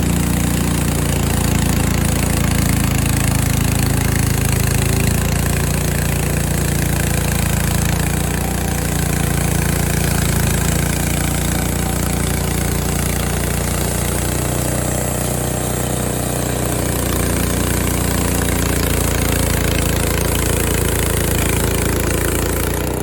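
Frontier OS23 portable bandsaw mill running steadily at full speed, its small gas engine driving the band blade through an ash log.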